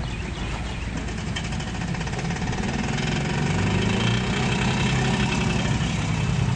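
Antique tractor engine idling steadily, growing louder about three seconds in.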